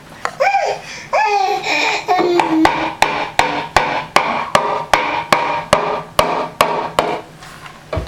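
A baby squealing and babbling, then banging a hard object over and over, about two to three bangs a second, while still vocalising between the bangs.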